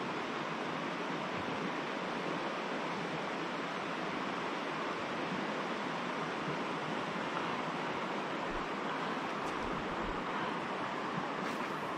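Steady rush of flowing river water, a constant even hiss.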